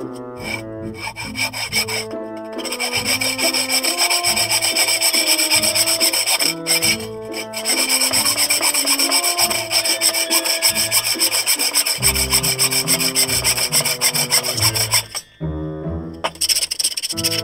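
A saw blade cutting through a thick wooden block, a continuous rasping of teeth on wood that stops briefly near the end. Background music plays underneath.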